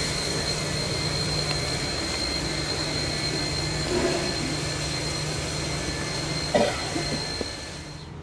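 Victorian Railways A2-class 4-6-0 steam locomotive A2 986 standing with steam up: a steady hiss and rumble of steam with a constant high whine, and a single knock about six and a half seconds in. The sound falls away to a quieter background near the end.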